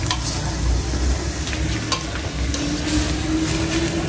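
Vegetables, bean sprouts and chicken sizzling in a pan as they are stir-fried, with a few light clicks of the stirring utensil. A faint steady hum comes in a little past the middle.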